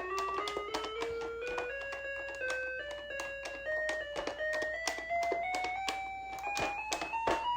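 VTech Lil' Smart Laptop toy in music mode, its keys pressed one after another so it plays a rising scale of electronic beeping notes, each step up starting with the click of the key, about three notes a second.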